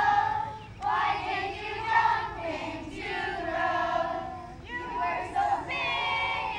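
A group of young girls singing a camp song together in unison, in held, phrase-by-phrase lines.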